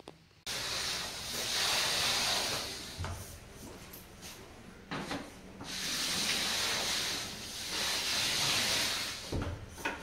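Tapepro compound applicator tube with a corner finisher head being run along an internal drywall corner, spreading joint compound: a noisy scraping rub in two long strokes, with a few short knocks in between.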